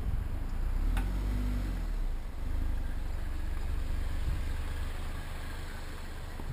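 Cars passing close alongside a moving bicycle: engine and tyre noise over a steady low rumble. There is a single sharp click about a second in.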